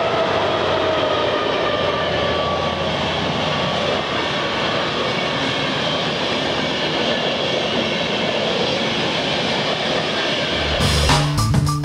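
Two class 218 diesel-hydraulic locomotives pass close by, their engine note falling as they go. The Intercity coaches behind them then roll past with steady wheel-on-rail noise. Music comes in near the end.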